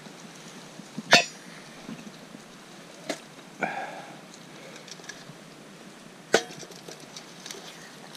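A few sharp knocks and clinks, three of them loud and spaced two to three seconds apart, over a steady background hiss.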